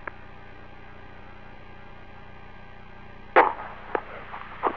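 Steady electrical hum and hiss of the shuttle cockpit's intercom audio feed, broken by a few short sharp clicks near the end, the first the loudest.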